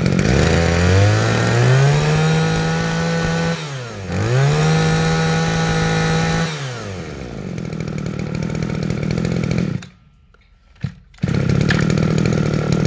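Shindaiwa 23cc two-stroke brush-cutter engine running, its throttle blipped twice: each time the pitch climbs from idle to high speed, holds for a couple of seconds, and falls back. It then idles. About ten seconds in the sound drops out for about a second, then the engine is running again.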